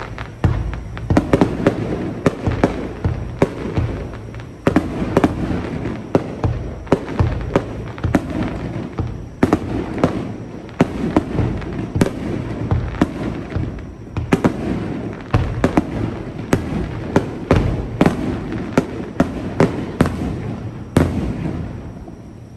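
Aerial fireworks bursting in rapid succession, many sharp bangs a second over a continuous rumble and crackle, dying away near the end.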